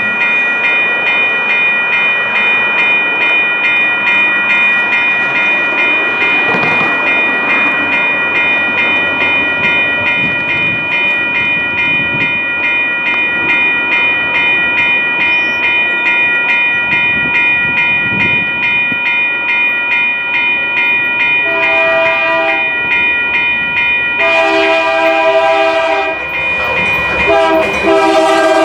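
Freight locomotive air horn on a Canadian Pacific AC4400CW, sounding one long, steady chord as the train approaches at speed. About 21 seconds in, the horn drops lower in pitch and sounds three shorter blasts. The rumble of the train and its wheels clicking over the rail joints run underneath.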